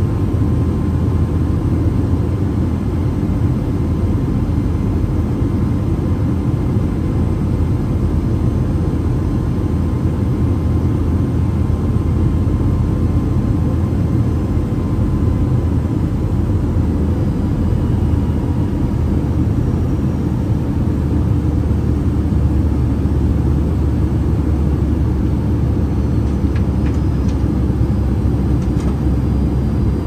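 Steady cabin noise inside a Boeing 757-200 in flight on descent: a low rumble of airflow and Rolls-Royce RB211 turbofans, with a faint steady whine above it. A few small ticks near the end.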